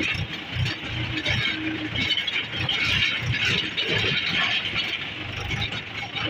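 Farm tractor's diesel engine running as the tractor drives along, a low uneven chugging with loose rattling on top.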